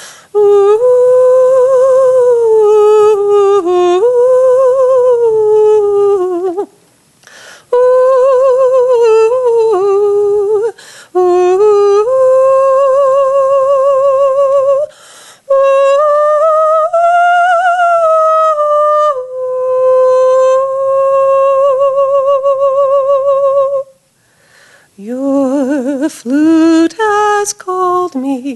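A woman's solo voice singing a slow wordless 'ooh' melody, close to the microphone, in phrases of a few seconds with a wavering vibrato. Near the end she holds one long note, then drops lower.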